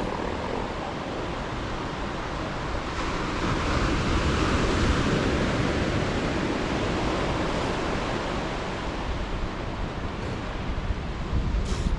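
Ocean surf washing ashore, with wind rumbling on the microphone; a wave swells louder about three seconds in and eases off a few seconds later.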